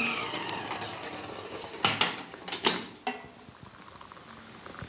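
Stovetop whistling kettle: its whistle falls away in the first second, leaving the hiss of steam and boiling water. Two sharp clinks follow about two and two and a half seconds in, then hot water is poured into a glass cup.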